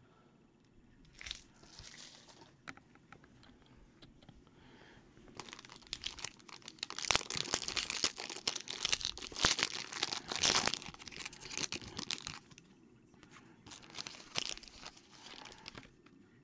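Foil-wrapped trading card pack being torn open and crinkled by hand, a dense crackle of foil loudest through the middle, with a few shorter crinkles before and after.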